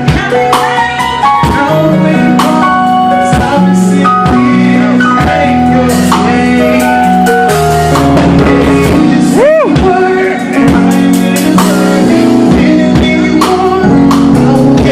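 A music track with a steady beat and sustained bass and melodic notes, a few sweeping effects, and some vocals.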